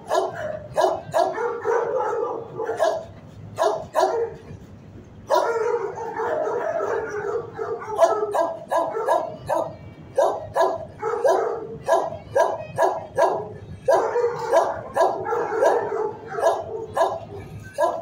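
Dogs in a shelter kennel block barking over and over in quick succession, with a short lull about four seconds in.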